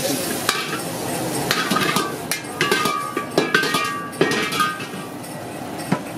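Long-handled metal ladle clanking and scraping against a wok while stir-frying noodles, irregular sharp metallic knocks, some ringing briefly, over a steady frying hiss.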